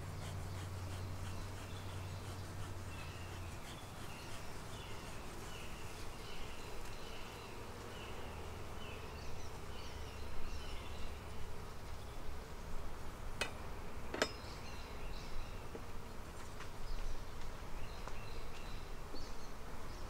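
Honeybees buzzing over an opened hive as it is smoked: a steady low hum, strongest in the first few seconds. Two sharp clicks come about two-thirds of the way through.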